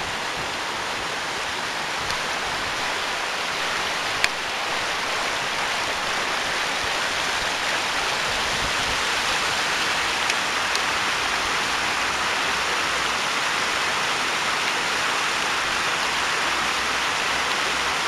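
Water rushing over the rocks of a shallow river and small waterfall cascades: a steady hiss that grows a little louder after the first few seconds. A single brief click comes about four seconds in.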